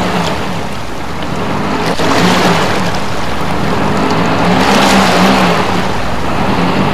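A car stuck in mud, its engine running while the tyres spin and churn mud and water, with a steady low engine tone under a thick hiss that swells about five seconds in.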